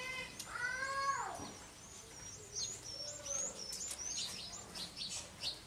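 An animal's drawn-out call, about a second long and dropping in pitch at its end, followed by a run of quick, high bird chirps, over a faint steady hiss of rain.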